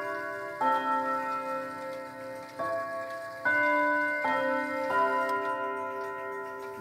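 Junghans pendulum wall clock with a W-series movement chiming a melody on its rods, one note after another, each ringing on as the next is struck, over the clock's ticking.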